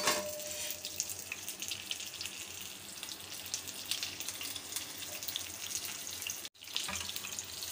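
Rolls shallow-frying in hot oil in a pan: a steady sizzle with fine crackling pops, cutting out for a moment about six and a half seconds in.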